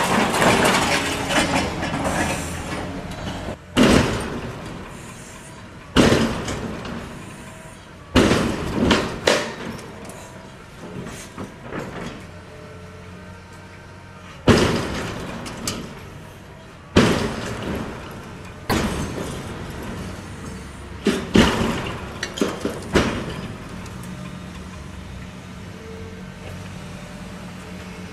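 Building demolition: about ten loud crashes of debris and breaking glass coming down a few seconds apart, each one fading away over a second or two. A steady machine hum runs underneath.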